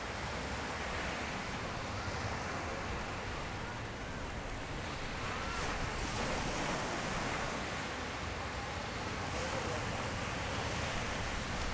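Small surf breaking and washing up a sandy beach in a steady wash, with a low rumble of wind on the microphone.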